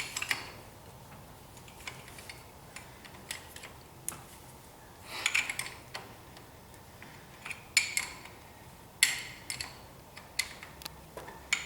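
Hand tools clinking against the driveshaft's loose U-bolts and nuts as they are worked off, in irregular sharp metal clicks with a few short clusters.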